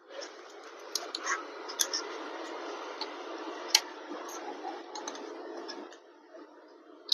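Scattered small sharp clicks and ticks of hand tools and small parts being handled during a laptop teardown, the loudest a little before the middle, over a steady hiss.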